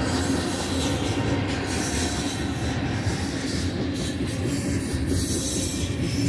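Loaded covered hopper cars of a freight train rolling past: a steady rumble of steel wheels on rail.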